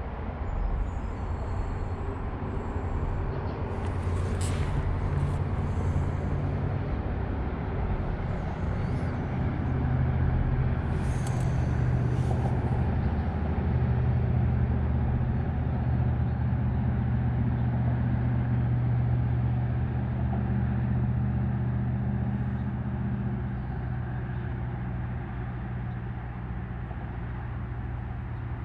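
Low engine drone that builds through the first half and eases off near the end, with a few short high hisses about four and eleven seconds in.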